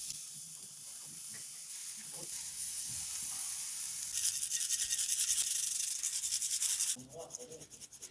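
Raw beef burger patties sizzling on the hot grate of a charcoal grill, a steady hiss that grows louder and crackly about four seconds in. The sizzle stops abruptly about seven seconds in.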